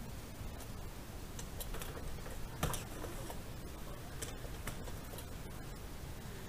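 Irregular light clicks and ticks over a steady low rumble, with one louder knock a little over two and a half seconds in.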